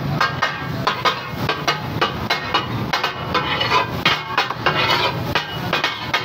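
Metal spatulas chopping and scraping a fish katakat mixture on a large flat tawa griddle. The rapid, uneven clanking comes several strikes a second, each with a short metallic ring.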